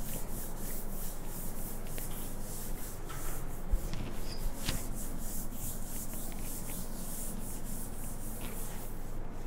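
Quick repeated rubbing strokes across the glass face of an interactive touchscreen whiteboard as handwritten pen annotations are wiped off, with a light knock a little before the middle.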